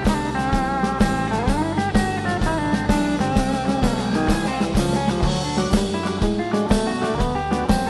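Country band playing an instrumental break between verses: a guitar lead, with a few sliding notes about two seconds in, over a steady drum beat.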